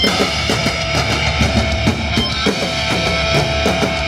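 Live rock music: a drum kit played hard with a steady beat over loud guitar-driven backing music.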